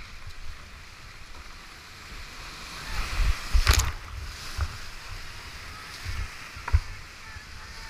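Whitewater rapids rushing past a GoPro in its waterproof housing, with water and wind buffeting the case in low thumps. About three and a half seconds in, the kayak punches through a wave and water crashes over the camera, with a couple of smaller splashes later.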